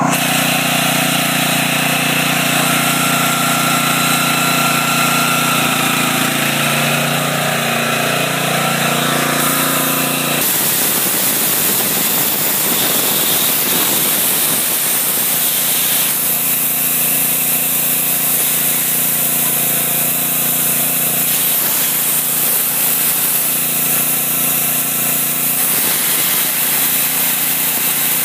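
Portable generator engine running steadily under heavy load from heaters, an air compressor and an air conditioner, pushed close to its maximum capacity. About ten seconds in the sound changes as a rougher, noisier layer joins the engine note.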